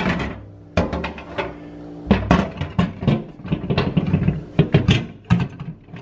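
Glass microwave turntable tray clunking and rattling against the turntable coupler and roller ring as it is worked back and forth; its notches are not catching on the drive. A short steady hum is heard about a second in.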